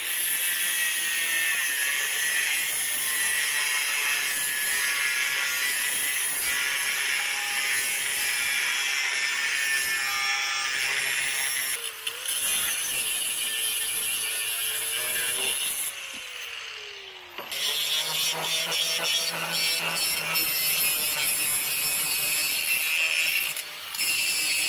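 Angle grinder with a new cut-off wheel cutting through steel shim stock: a steady high-pitched grinding hiss. It breaks briefly about halfway through, and again a few seconds later, when the motor winds down with a falling whine before the cutting starts up again.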